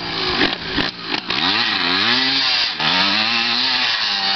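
Dirt bike engine revving as the throttle is worked, its pitch dropping and climbing again twice, then holding steady near the end.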